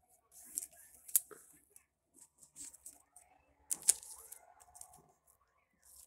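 Trading cards being handled and slid into plastic sleeves: short rustles of plastic and card with sharp clicks, loudest about a second in and just before four seconds.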